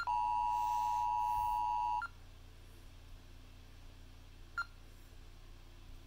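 TCL LX smartphone's emergency alert tone playing through its speaker as a preview: a steady two-pitch attention tone for about two seconds that cuts off sharply, then a single short tap click from the phone a few seconds later.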